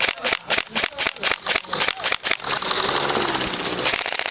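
Tokyo Marui M4 electric-blowback airsoft rifle firing: quick single shots at about five a second, then a full-auto burst of about a second and a half from about two and a half seconds in.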